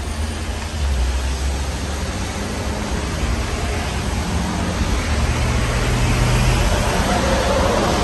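Casablanca Spirit Of Saturn ceiling fan running with four blades: a steady rushing of moving air with a low, uneven rumble, swelling slightly toward the end.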